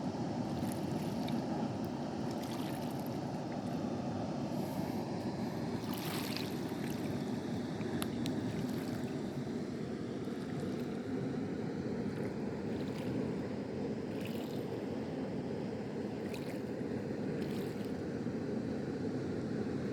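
Water released over a low river dam, rushing and splashing steadily with a light sound rather than a deep roar, with a few brief sharper splashes.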